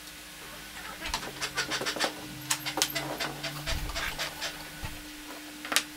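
Quick irregular clicks and light knocks of metal and plastic hardware being handled as an aluminium T-track fence extrusion is fitted onto a wooden fence board with T-bolts and a flip-stop is adjusted on it. A dull thump comes near the middle, and a sharp click near the end, over a faint steady hum.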